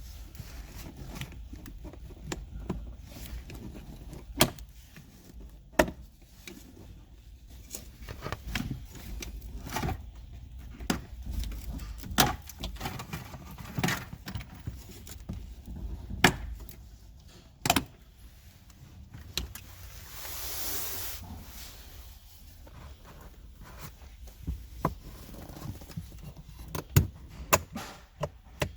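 Plastic interior trim being pried off and handled: scattered sharp clicks and knocks of clips letting go and panels bumping, with a soft scraping rush about two-thirds of the way through.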